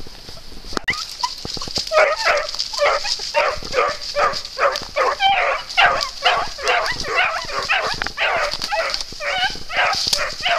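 Young hunting-dog puppies yelping in a quick, steady string of high cries, two or three a second, starting about two seconds in: pups giving tongue as they follow a wild boar skin scent trail.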